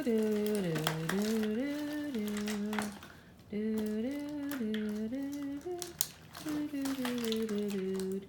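A person humming a wordless tune in held notes that step up and down, breaking off briefly about three seconds in. Light clicks and crinkling from toy pieces and packaging being handled sound alongside.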